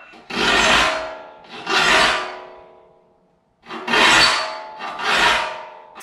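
Saw file rasping across the teeth of a crosscut panel saw held in a saw vise: four long strokes, two, a pause of about a second, then two more, each with a ringing tone in the rasp. The file is sharpening dull teeth, taking the flat spots off their tips.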